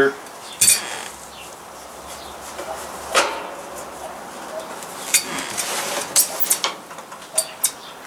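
Scattered sharp metallic clicks and clinks of a screwdriver and screws on a kerosene heater's metal top as the lid is screwed back on, with a quick run of clicks about five to seven seconds in.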